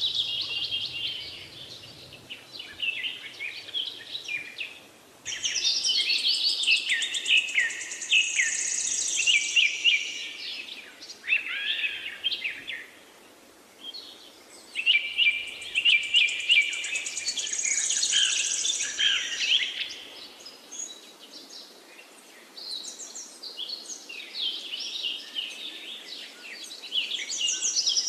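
Birds chirping and singing, many short calls overlapping, in bursts that swell and fade every few seconds.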